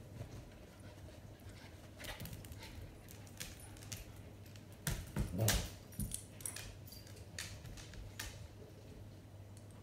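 Dogs' claws clicking and tapping on a tile floor as a German Shepherd and a Schipperke puppy move about, with light jingling from a collar tag. A louder scuffle of knocks comes about five seconds in, over a steady low hum.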